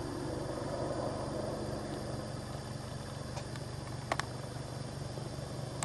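Helicopter flying overhead: a steady low drone with a fast, even pulse. Two sharp clicks come a little after four seconds in.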